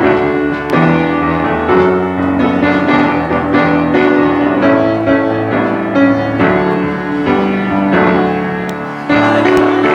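Worship music played on a piano-type keyboard, with held chords that change about once a second.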